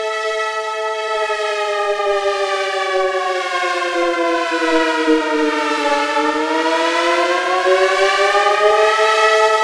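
Synthesized dual-tone Federal Signal 2001 civil defense siren, its two chords sliding slowly down in pitch for about six seconds, then winding back up near the end.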